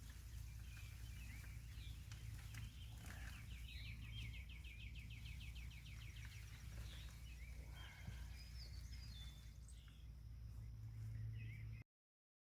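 Birds chirping, with one rapid trill lasting a few seconds, over a low steady outdoor rumble. All sound cuts off abruptly near the end.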